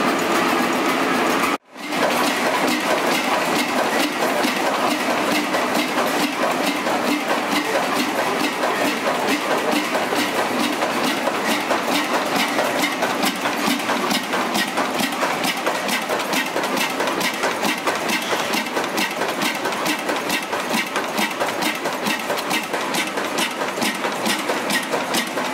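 A multi-cylinder stationary diesel engine running, cut off abruptly about two seconds in. Then a Ruston horizontal stationary oil engine running steadily, its valve gear giving a rapid, even clatter of sharp clicks.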